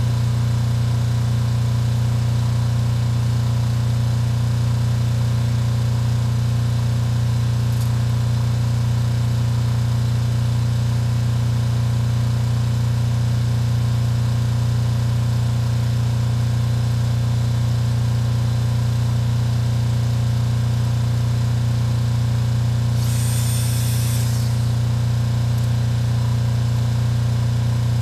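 An engine idling steadily with an even, unchanging hum. Near the end comes a brief hiss lasting about a second and a half.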